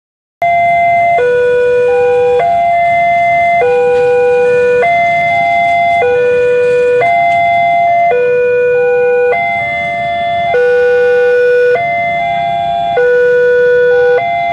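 Electronic warning signal of a railway level crossing sounding, a repeating phrase of held tones stepping between pitches about once a second, starting about half a second in. It is the sign that a train is approaching and the barriers are closing.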